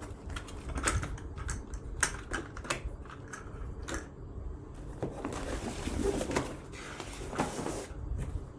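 Irregular sharp clicks and taps of small hard objects, one to three a second, over a low steady rumble.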